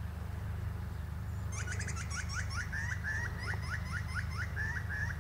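A butcherbird calling: a rapid series of short rising whistled notes, about four a second, starting about a second and a half in and carrying on, over a steady low hum.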